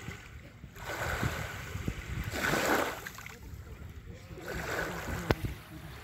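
Small waves lapping on a sandy beach, washing up in swells about every one and a half seconds, with a light click near the end.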